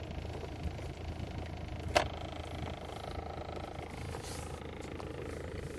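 Steady low hum of a car heard from inside the cabin, with one sharp click about two seconds in.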